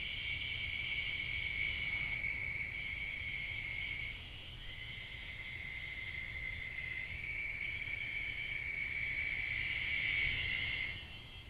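Steady high-pitched trilling of night insects such as crickets, breaking off briefly about four seconds in and fading out near the end.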